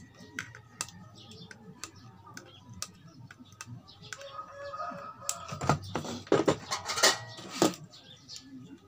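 Side cutters snipping off the excess legs of components on an amplifier circuit board: scattered sharp clicks, then a louder cluster of snaps and knocks from about five and a half to seven and a half seconds in.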